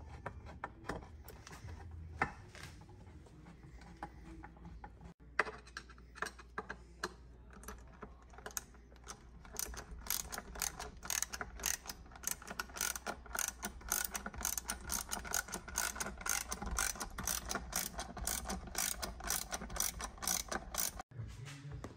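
Socket ratchet wrench clicking as nuts are backed off the gauge studs on a plastic boat helm panel. There are scattered clicks and knocks at first, then quick, steady runs of ratchet clicks from about halfway.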